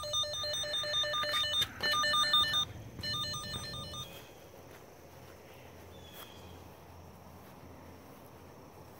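Vevor underground cable locator sounding its electronic tone: a fast two-pitch warble, like a phone ringer, with a couple of short breaks. It cuts off about four seconds in, leaving only faint outdoor background.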